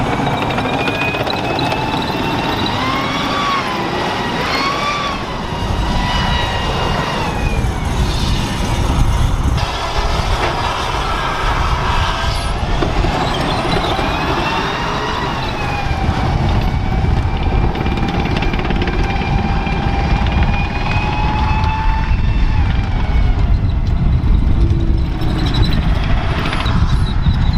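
M1A2 Abrams tank driving, its gas turbine engine whining over a low rumble of engine and tracks. The whine wavers up and down in pitch in the first half, then holds steady, while the rumble grows louder near the end.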